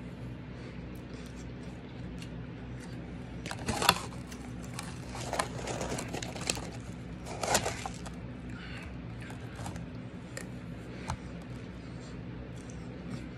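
Shaved ice being scooped with a metal spoon from a plastic tub and crunched while eating, in a few loud crackly bursts through the middle, over a steady low hum.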